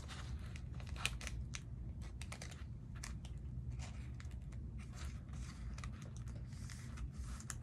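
Trading card being slid into a plastic sleeve and put into a binder: scattered soft plastic crinkles and small clicks, irregular and unhurried, over a low steady hum.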